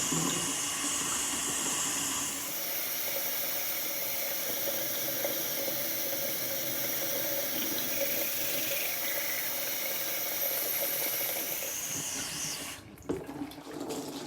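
Bathroom sink tap running in a steady stream, then shut off abruptly near the end, followed by a single knock.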